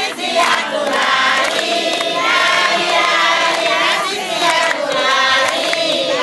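A crowd of women singing together, many voices in chorus, in phrases of a couple of seconds.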